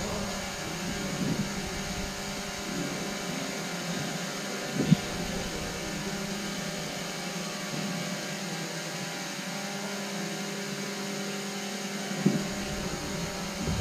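Steady low hum of a large sports hall, with two sharp, dull knocks during a spear-fencing bout, one about five seconds in and another near the end.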